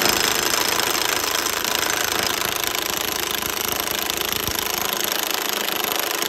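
DeWalt cordless impact wrench hammering without a break on the piston retaining nut of a hydraulic cylinder rod, working the nut loose.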